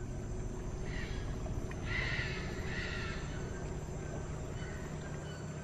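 Harsh bird calls, three short ones about a second apart in the first three seconds, over a steady low hum.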